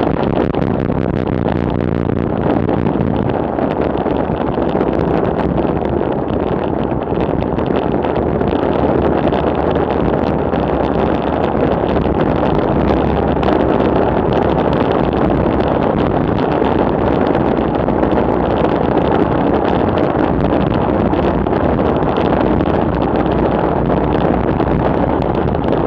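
Steady wind rush over the microphone of a camera on a road bike descending fast, at about 45 to 60 km/h.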